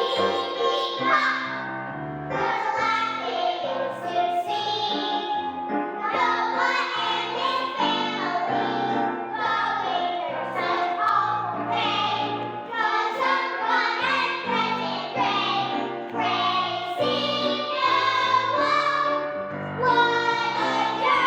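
Children's choir singing a song with instrumental accompaniment and a stepping bass line.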